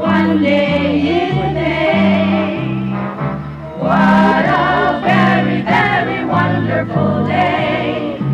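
A group of singers performing a song in harmony, with instrumental accompaniment and a steady bass line stepping from note to note under the voices.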